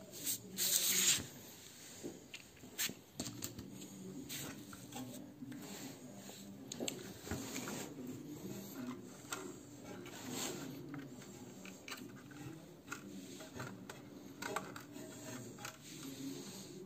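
Hands working on a car radio's metal casing and front panel: rubbing and scraping with scattered small clicks and knocks, the loudest scrape about a second in.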